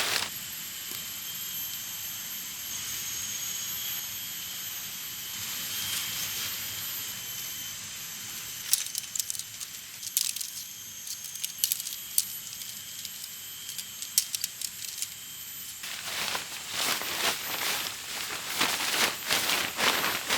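Camping gear being handled and packed: rustling, with clicks and light clinks in the middle and a busier stretch of rustling and knocks near the end, over a steady high insect chorus.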